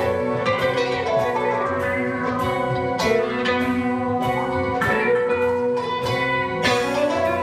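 Song with guitar over a steady beat, in a passage without sung words.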